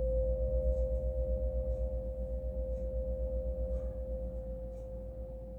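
A pair of Schumann tuning forks ringing together: a steady pure tone with a quick, even wobble as the two close pitches beat against each other, slowly fading away after the strike.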